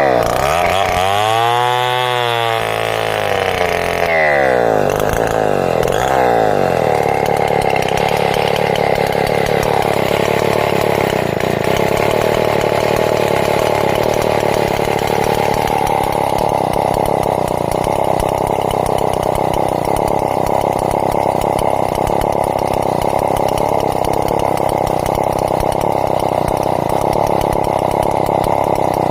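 Two-stroke chainsaw revving down and up twice over the first few seconds, then running steadily at high revs under load, as when ripping a log lengthwise into planks.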